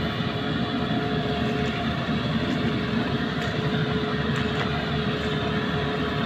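Rice harvesting machine running steadily: a constant engine and machinery drone with a held tone over it.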